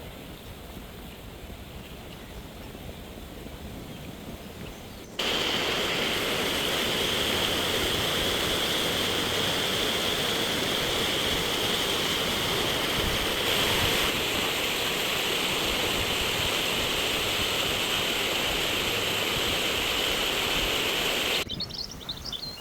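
A steady, loud rushing noise that starts abruptly about five seconds in and cuts off suddenly near the end, after a fainter hiss.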